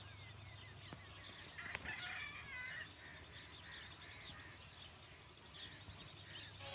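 Birds chirping and calling, many short repeated chirps, with a louder burst of calls about two seconds in, over a steady low hum.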